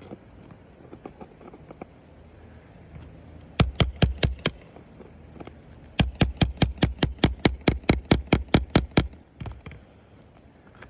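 Hammer blows on metal in two quick runs: about five strikes, a short pause, then about sixteen more at roughly five a second, each with a short bright ring.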